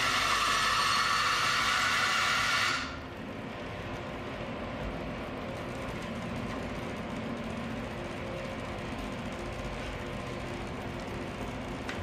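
Makita LB1200F bandsaw blade cutting through a block of wood, loud until the cut ends about three seconds in. After that the saw runs on unloaded, steady and much quieter.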